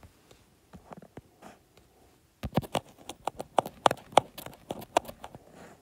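Light taps and clicks of drawing on a tablet touchscreen: a few scattered taps at first, then a quick run of several a second from about two and a half seconds in until near the end.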